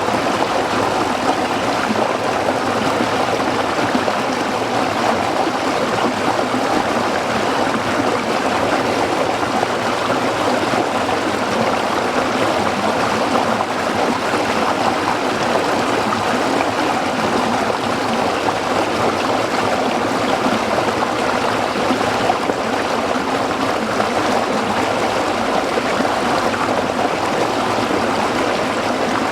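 A shallow stream running over rocks: a steady, even rush of water with some trickling.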